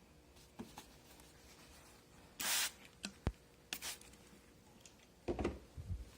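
Two short hisses of a hand spray bottle misting water onto leather to dampen it for stamping, about two and a half and four seconds in, followed by light knocks and handling of the leather near the end.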